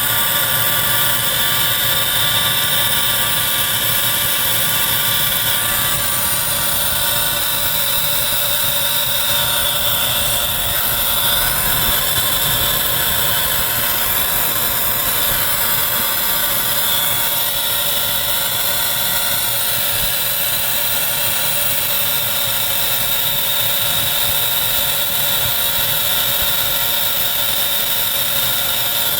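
Mitsubishi Ecodan air-source heat pump compressor running: a steady mechanical hum with a high-pitched whine over it, a noise the owner treats as a fault.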